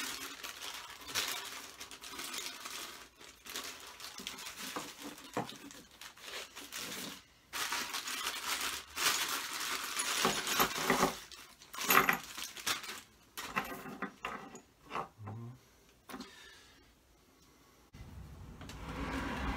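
Loose steel lathe accessories clinking and clattering as they are handled and set down, with crinkling of wrapping mixed in. A steady low hum starts near the end.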